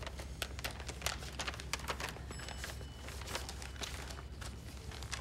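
Paper envelope being opened and its report card sheets pulled out: a run of quick, scattered paper rustles and crinkles.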